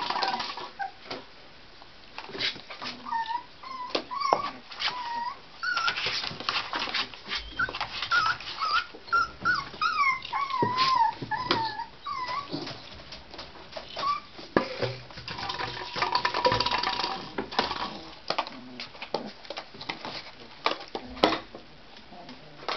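Tibetan terrier puppies whining in short, high squeaks that slide up and down in pitch, mostly in the middle stretch, among many small clicks and knocks.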